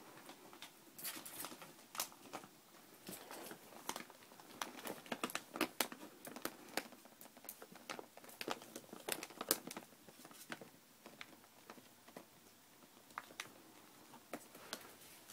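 Ferret scrabbling and burrowing in blankets inside a plastic laundry basket: rustling and rapid, irregular scratchy clicks, busiest for the first two-thirds and thinning out later.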